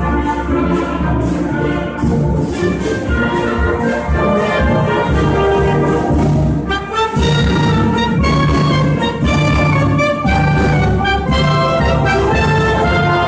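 Wind band of clarinets, saxophones and brass with a tuba playing a tune live, over a steady repeating bass line.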